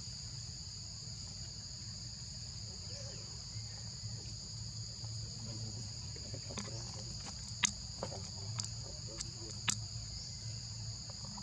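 Steady, high-pitched insect chorus droning on two unbroken tones, with a few sharp clicks in the second half.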